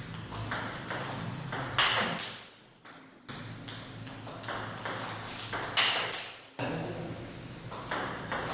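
Table tennis rally: the celluloid ball clicking sharply off the paddles' rubber and bouncing on the table in a quick, repeated rhythm as backhand loops are played. The sound cuts out briefly twice.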